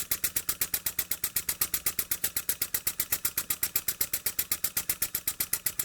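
Jowitt Major poppet valve model steam engine running on compressed air, its exhaust giving a quick, even beat of chuffs. The steady rhythm shows it running smoothly with its cam timing newly set.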